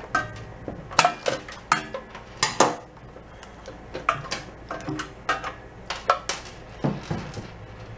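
Tools and metal parts clinking and clanking irregularly, about fifteen sharp knocks, some ringing briefly, as a Briggs & Stratton engine is taken apart by hand.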